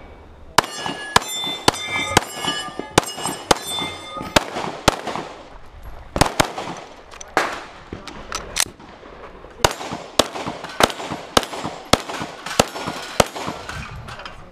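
Semi-automatic pistol fired in quick strings at steel targets, the first shots each followed by the ringing clang of a hit steel plate. About halfway through the shots pause for roughly a second during a magazine change, then another fast string follows.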